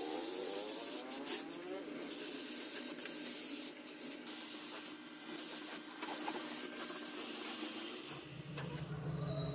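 Paint spray gun hissing in long passes, with several brief breaks where the trigger is released. Background music comes in near the end.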